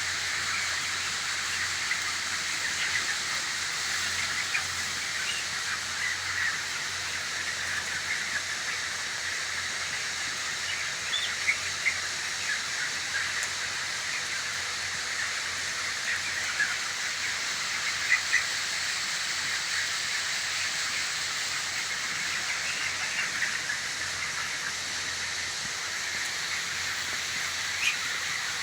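A flock of 26-day-old chickens in a poultry house, many birds chirping and peeping at once over a steady hiss, with a few sharper, louder sounds standing out now and then.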